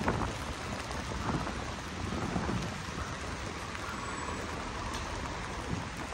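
Steady rain falling on a wet city street, a continuous hiss, with an uneven low rumble underneath.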